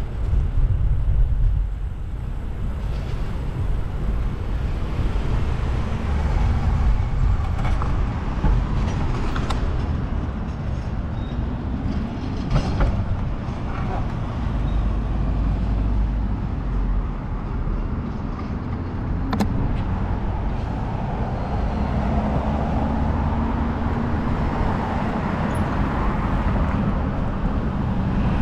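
City street noise heard from a moving bicycle: a constant low rumble of wind on the microphone under passing motor traffic, with a few short sharp clicks.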